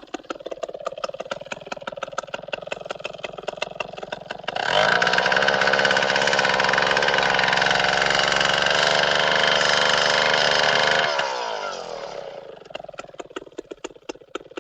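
Chainsaw engine idling with an even pulse, revved to full throttle about four and a half seconds in and held there for several seconds, then winding down in pitch back to idle.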